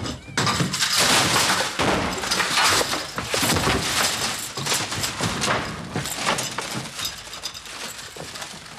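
A long crash of furniture and household things falling and breaking, many knocks and smashes one after another, loudest in the first few seconds and dying down toward the end.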